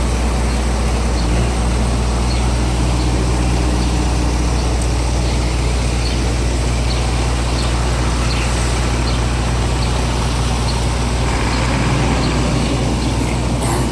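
Heavy diesel vehicle engine idling steadily with a constant low hum, over city street traffic noise.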